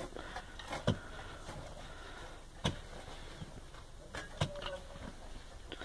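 Pickaxe striking hard-packed dry earth in an excavation trench: three or four dull thuds, one every second or two, with loosened dirt and small stones falling.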